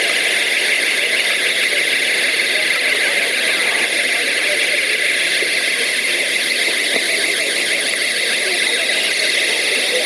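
Many small alarm devices sounding together at once, a continuous shrill tone with a fast warble that holds steady throughout.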